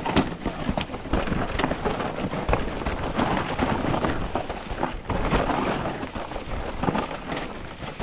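Wind rumbling over an action camera's microphone as an e-mountain bike descends a dirt trail at speed, with tyres on loose dirt and frequent knocks and rattles from the bike over bumps.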